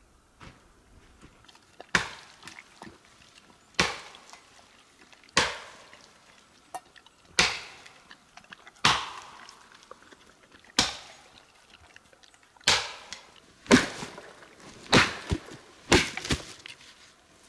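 Axe chopping into a fallen wooden branch: about ten sharp blows, one every second and a half to two seconds, coming faster near the end.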